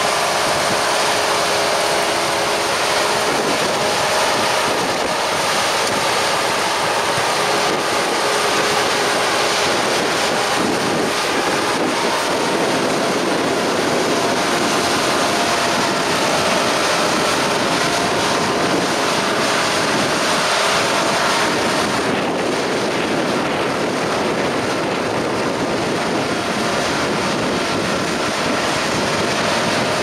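Fendt Ideal 9T combine harvester at work threshing barley: a steady engine drone under a broad, even rushing noise from the machine.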